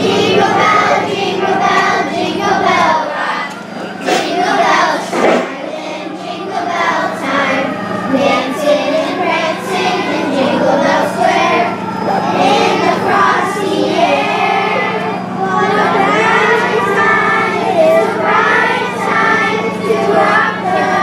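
A group of fourth-grade children singing a Christmas carol together, over a steady low hum.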